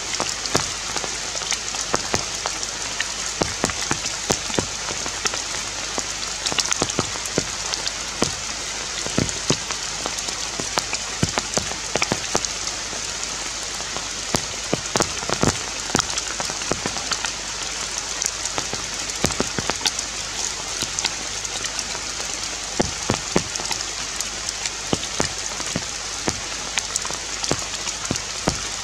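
Rain falling on forest foliage: a steady high hiss with irregular close drops ticking through it.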